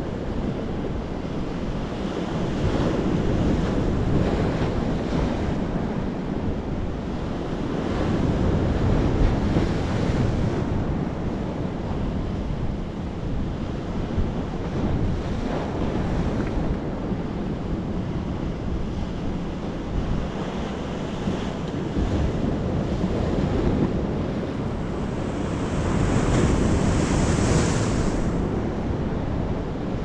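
Sea waves breaking on rocks and washing up a sandy beach, swelling and easing every few seconds, with a louder crash and hissing spray near the end. Wind buffets the microphone throughout.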